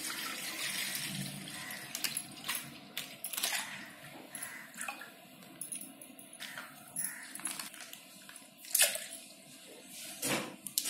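Milk poured from a plastic pouch into a stainless steel bowl: a liquid stream splashing into milk, strongest in the first couple of seconds, with the plastic pouch crinkling in the hands. Two louder sharp clicks come near the end.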